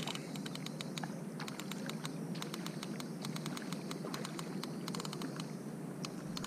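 Fishing reel clicking rapidly and irregularly as a kingfish is played close to the kayak, with steady low background noise underneath.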